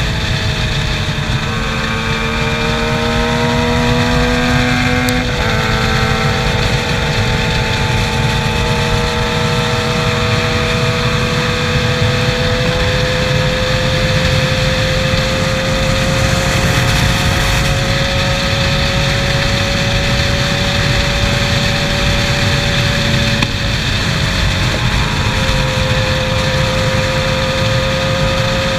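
Sport bike's inline-four engine heard from the rider's seat, climbing in revs with two upshifts in the first five seconds, then running at a steady, slowly rising pitch at highway speed with a brief dip near the end. Heavy wind rush on the microphone underneath.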